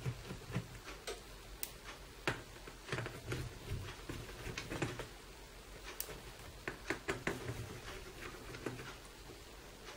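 Small screwdriver unscrewing the tiny screws that hold a Dell Latitude E7250 laptop keyboard: faint, irregular light clicks and taps of metal and plastic.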